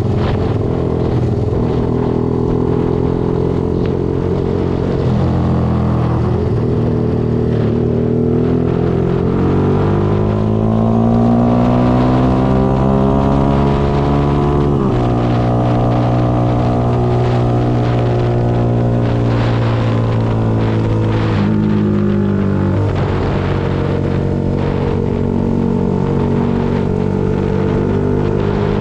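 Yamaha Y15ZR's single-cylinder four-stroke engine pulling the bike along, rising in pitch as it accelerates and dropping suddenly at a gear change about halfway through, then running steady before changing pitch again a few seconds later.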